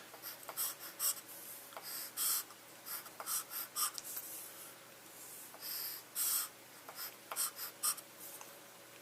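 Pen strokes on a writing surface while a diagram is drawn: short, irregular scratchy strokes, several a second, with brief pauses, over a faint steady hum.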